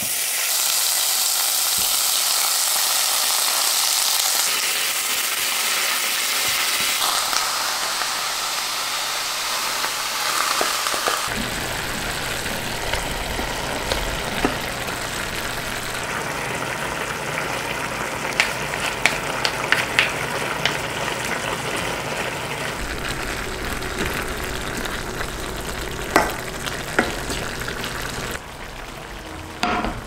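Food hitting a hot stainless-steel pan and sizzling loudly as it fries, starting abruptly. A wooden spoon stirs it through, with a scatter of sharp clicks of spoon against pan in the second half.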